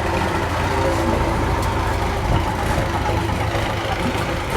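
MTZ tractor's diesel engine running steadily at idle, a continuous low hum.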